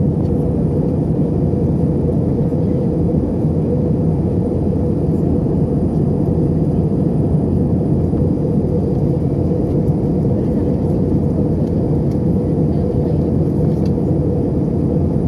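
Steady cabin noise of an airliner in flight: a constant low roar of engines and airflow, unchanging throughout.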